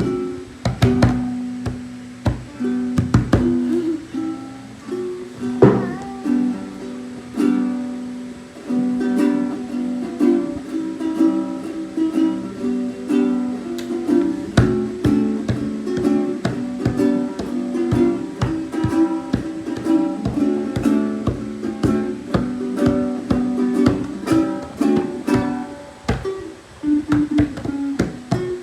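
Ukulele strummed in chords, hesitant at first and settling into a steady rhythm about eight seconds in.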